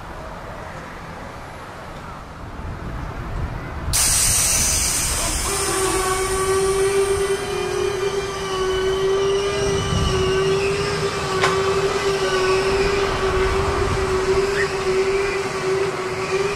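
Kiddie ride train's steam-locomotive sound effects: a sudden loud steam hiss about four seconds in, then a long, steady whistle tone held to the end, over a low running rumble.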